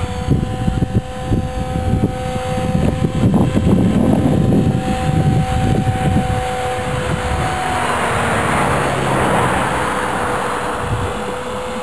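A Blade 400 electric radio-controlled helicopter flying, its motor and rotors making a steady whine. A rushing rotor noise swells about eight seconds in, and wind buffets the microphone.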